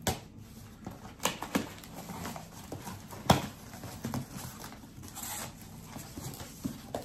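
Hands opening a cardboard shipping box: the tape is pulled away and the flaps are bent back, making a run of irregular crinkles, scrapes and knocks. The loudest is a sharp knock about three seconds in.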